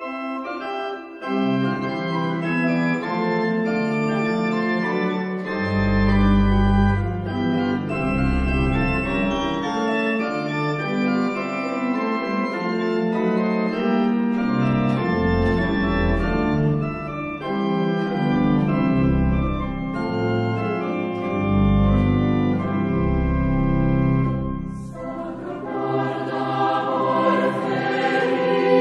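Organ music playing held chords, with deep bass notes coming and going. About 25 seconds in, it gives way to a choir singing.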